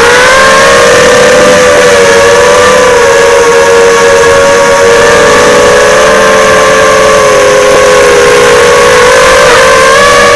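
FPV quadcopter's brushless motors and propellers whining, picked up by the onboard action camera: several close tones that waver up and down with throttle and rise in pitch near the end, very loud.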